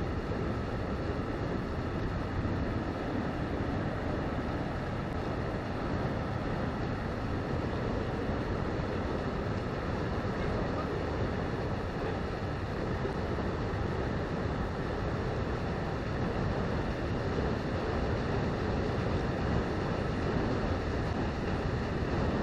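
Paddle steamer Waverley under way and approaching: a steady low rumble and churning from its paddle wheels and wash, growing slightly louder near the end.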